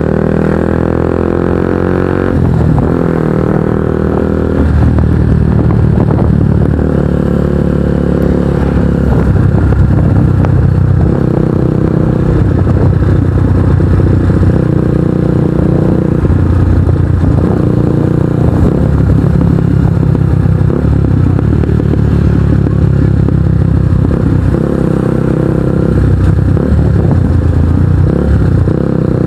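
Kawasaki NS150's single-cylinder engine running through an aftermarket Akrapovic exhaust while riding. Its pitch falls in the first couple of seconds, then rises and drops in steps as the throttle and gears change.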